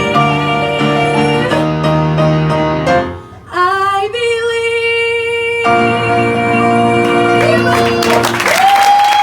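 Closing bars of a show tune: a singer holds long final notes over instrumental accompaniment, with a brief drop in level about three seconds in. Applause breaks out near the end.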